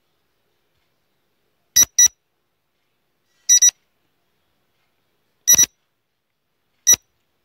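Electronic alarm-clock-style timer beeps counting off the seconds of a quiz answer countdown. Starting about two seconds in, they come as three quick double beeps and a single beep near the end, roughly one every one and a half to two seconds, with silence between.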